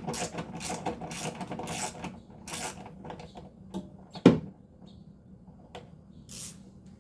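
Hand ratchet and socket being worked in short strokes on a bracket bolt, a scratchy rasp about every half second, fading after about three seconds. About four seconds in there is one sharp metallic knock, the loudest sound.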